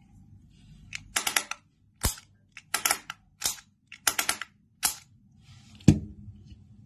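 Bottle-shaped metal fidget toy's spring-loaded cap being pressed with the thumb, giving a run of sharp clicks, some single and some in quick bursts of three or four. Near the end comes a louder click with a knock as the fidget is set down on the table.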